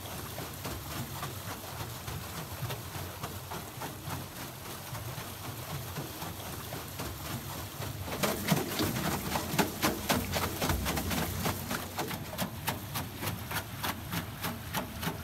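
Poncelet water wheel turning in a fast river current: rushing, splashing water. About eight seconds in it grows louder, with a rapid, even run of slaps.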